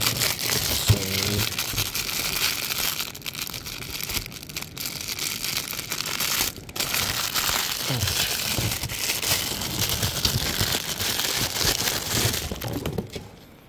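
Plastic bag crinkling and rustling steadily as hands unwrap a router's power adapter from its packaging; the crinkling stops about a second before the end.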